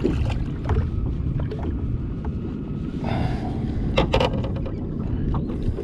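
Wind buffeting the microphone and water lapping against a small fibreglass boat's hull as it drifts with the motor off, with a couple of sharp clicks and knocks about four seconds in.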